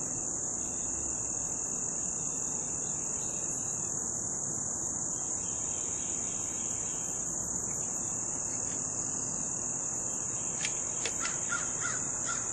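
Steady, high-pitched insect chorus droning without a break, with a few short bird calls near the end.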